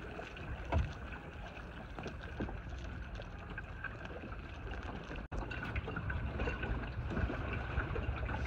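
Wind on the microphone and water washing along the hull of a small sailboat under way, with a few light knocks and splashes. The sound cuts out for an instant about five seconds in.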